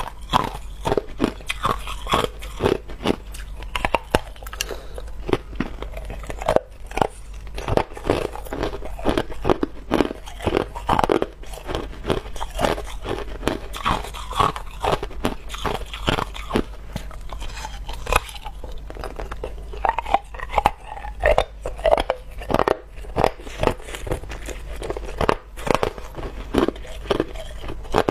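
Hard, clear ice from a frozen ice ball being bitten and chewed close up, in an irregular run of sharp crunches and cracks several times a second.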